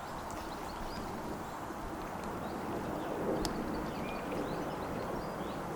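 Small birds chirping in short, repeated calls over a steady low rumble of outdoor background noise, with one sharp click about three and a half seconds in.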